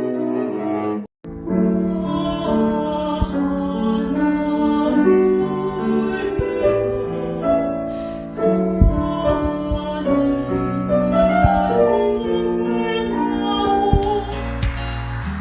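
Background music with changing notes; it drops out for a split second about a second in, then carries on.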